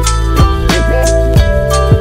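Background music with a steady drum beat over held bass and chords.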